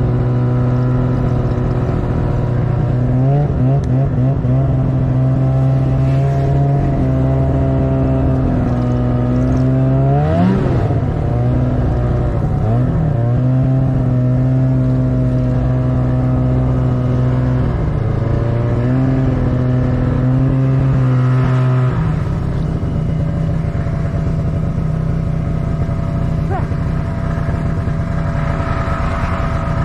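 Snowmobile engine running under way. Its pitch climbs and falls as the throttle is worked, with quick rises a few seconds in and again around a third of the way through. About two-thirds of the way in it settles to a lower, rougher steady run.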